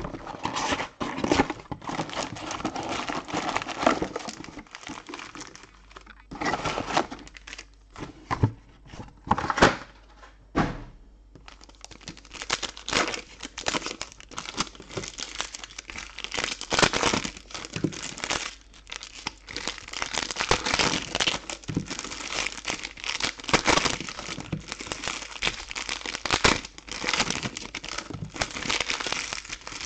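Foil trading-card pack wrappers crinkling and tearing as hands handle and open packs, with irregular crackles and clicks. The sound is sparser for a few seconds before the middle, then busier and continuous through the second half.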